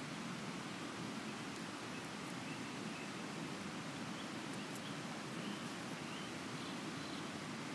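Steady rushing of a river, with a few faint short bird chirps over it.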